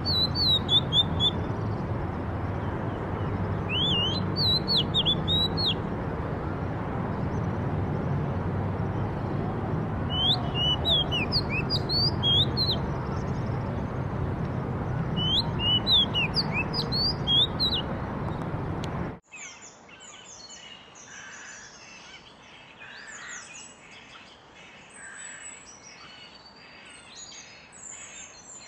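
Songbirds singing in short phrases of quick rising and falling whistled notes, four bursts over a steady low background noise. About 19 seconds in, the sound cuts abruptly to a quieter chorus of many birds chirping.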